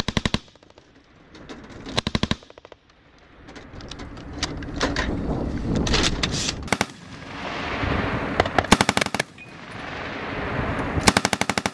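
Vehicle-mounted machine gun firing short bursts of automatic fire, about four bursts of rapid shots, with the armoured vehicle's engine and driving noise swelling in the pauses between them.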